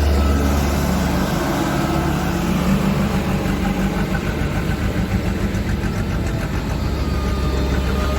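Diesel engine of a HAMM 311 road roller running steadily. A heavy low hum drops away about a second in.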